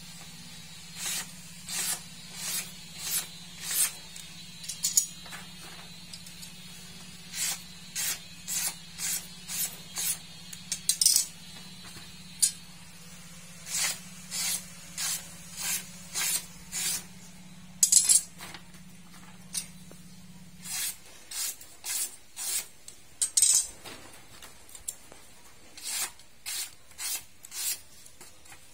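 Mandau blades slicing through sheets of paper: a series of short, crisp swishes, about one or two a second, in runs with short pauses. A faint low hum runs underneath and stops about two-thirds of the way through.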